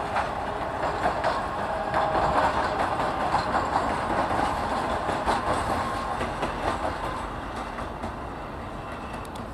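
Two coupled diesel locomotives, a 2TE116 and a TEP70, running light past: wheels clattering over rail joints with a brief faint squeal about two seconds in, the sound fading as they move away.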